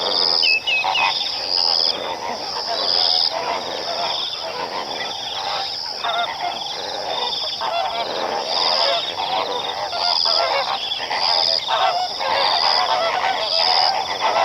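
A flock of flamingos calling, many goose-like calls overlapping in a continuous chorus. A high note repeats about every second and a half above the flock.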